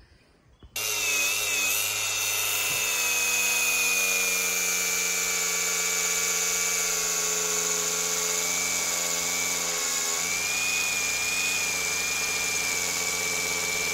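Bosun BS-AG100BL cordless brushless angle grinder cutting in abruptly about a second in, then running with a steady high whine as its disc is pressed hard into a wooden beam. Held under load, the motor keeps running without cutting out.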